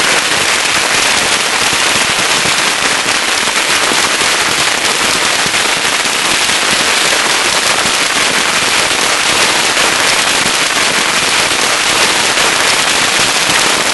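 A mass of bottle rockets going off together: a loud, dense, unbroken crackle of pops and bangs that holds steady throughout.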